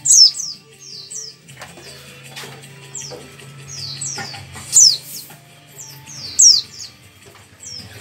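Caged white-eye (pleci) singing: a run of short, high chirps, each sliding quickly downward, repeated irregularly, with the loudest calls about a quarter second in, just past the middle and about three quarters through.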